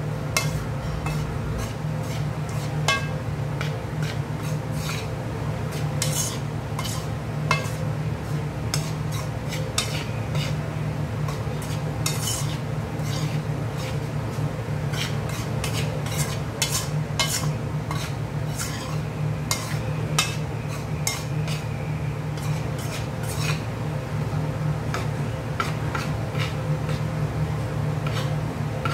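Metal spoon stirring and scraping dry flour in a large metal mixing bowl, with frequent clinks of the spoon against the bowl's side, over a steady low hum.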